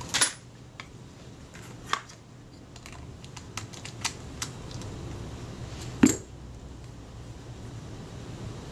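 Scattered small metallic clicks and ticks, louder once near the start and again about six seconds in, as pliers and fingers work small film advance parts off the body of a Kodak Retina IIIC camera.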